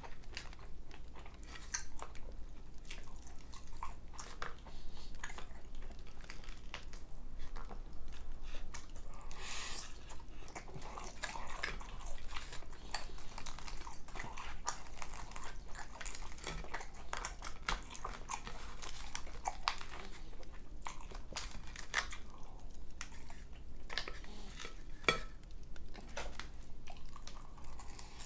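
Close-miked eating: steady chewing and mouth smacks, with many short clicks and scrapes of a metal fork working in an aluminium foil tray.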